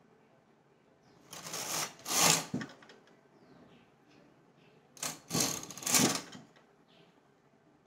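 Carriage of a punch-card flatbed knitting machine pushed along the metal needle bed twice, each pass a rattling metallic clatter of about a second as it knits a row. The first pass comes about a second in, the second about five seconds in.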